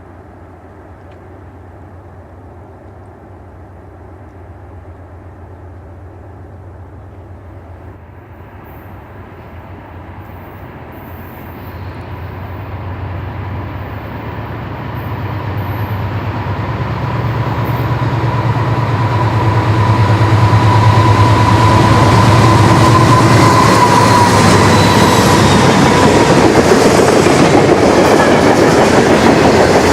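Diesel-hauled freight train approaching and passing. The locomotive's low engine drone grows louder over about twenty seconds, then gives way to a loud, steady rolling rumble and clickety-clack of wheels as the cars go by.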